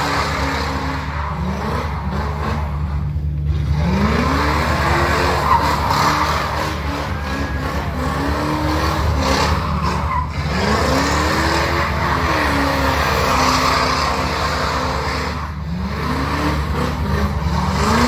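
A Corvette's V8 held at high revs, rising and falling several times over a steady low rumble, while its spinning rear tires squeal and hiss through a smoky burnout.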